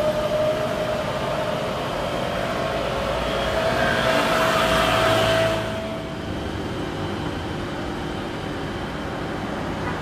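Jet airliner engines at takeoff power: a steady whine over a rushing noise that grows louder, then cuts off suddenly about five and a half seconds in. After that comes a quieter steady engine drone from a Boeing 737-800 on final approach.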